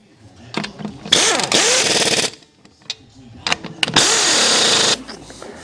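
Two loud bursts of compressed air hissing, the first about a second in lasting a little over a second, the second near the end lasting about a second, each starting and stopping abruptly with clicks just before it.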